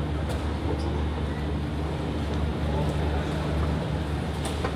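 Steady low mechanical rumble with a constant hum under it, with a few light clicks, the clearest near the end.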